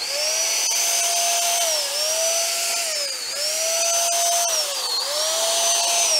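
Handheld electric paint sprayer running and spraying paint thinner: a steady vacuum-cleaner-like motor whine with the hiss of the spray, its pitch dipping briefly three times, then starting to wind down at the very end as it is switched off.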